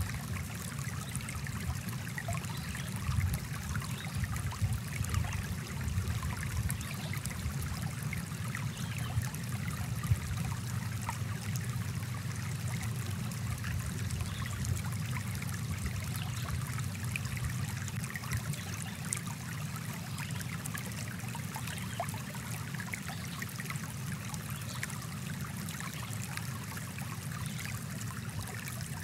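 Small stream flowing steadily, a continuous babble of running water with a low, full undertone.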